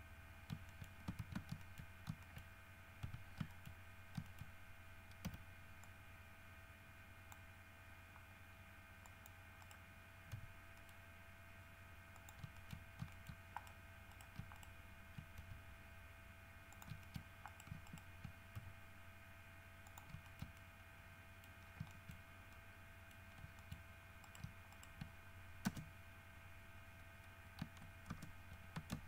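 Faint computer keyboard and mouse clicks in irregular clusters, over a faint steady hum.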